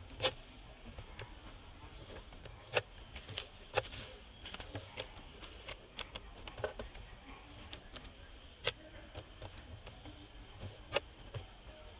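Dry fallen leaves crackling in irregular sharp clicks as macaques shift about on them, over a faint steady high hiss.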